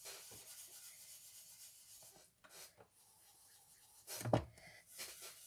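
Faint rubbing and scraping of an ink blending brush on card stock, with a single sharp knock about four seconds in as an ink pad is handled on the craft mat.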